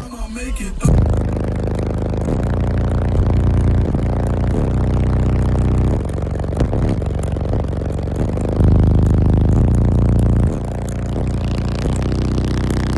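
Loud bass-heavy music through a car audio system of six Sundown Nightshade 18-inch subwoofers in a folded-horn box: deep bass notes held for a second or two each, with rattling and scraping as the vehicle shakes under the bass pressure. A short drop-out comes right at the start.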